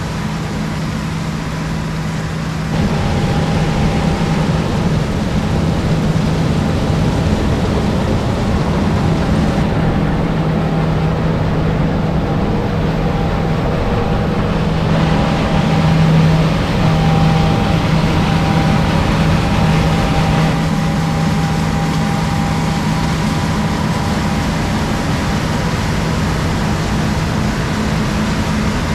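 Heavy diesel harvest machinery running steadily with a low, constant hum; the sound grows louder about three seconds in.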